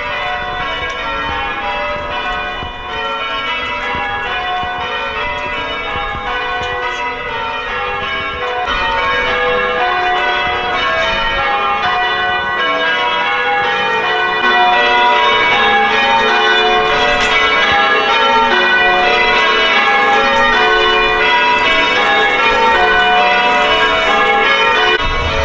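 Church bells of Cromer's parish church tower being rung in changes: a continuous, overlapping run of bell strokes, growing louder about halfway through.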